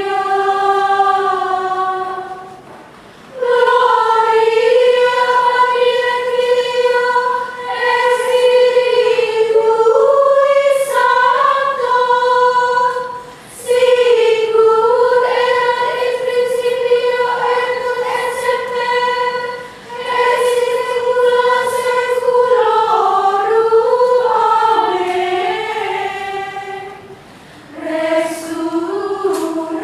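Women's choir singing Gregorian chant unaccompanied and in unison: a single melodic line sung in long phrases, with short breath pauses between them.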